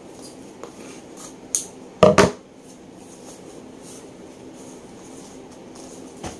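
A long flat cardboard box of table parts being handled and unpacked: light taps and scrapes, with two loud knocks in quick succession about two seconds in. A steady low hum runs underneath.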